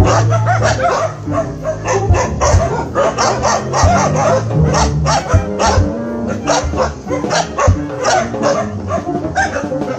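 Several dogs barking and yipping in quick, repeated barks: alarm barking at a stuffed toy tiger rolling toward them on a remote-control car. Background music plays underneath.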